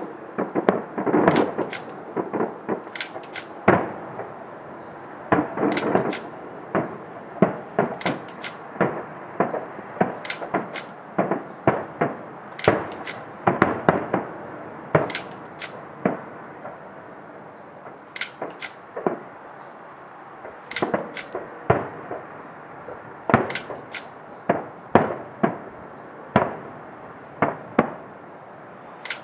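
Aerial firework shells bursting: a long, irregular run of sharp bangs, each trailing off in an echoing rumble, several close together at times.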